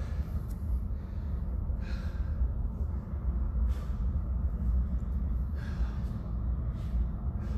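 A man's heavy breathing: hard gasping breaths about every one to two seconds as he catches his breath after exertion, over a steady low rumble.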